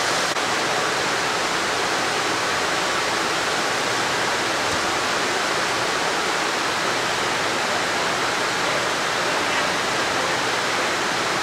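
Steady, even noise of yarn winding and twisting machines running on a textile factory floor, with no distinct beat or tone.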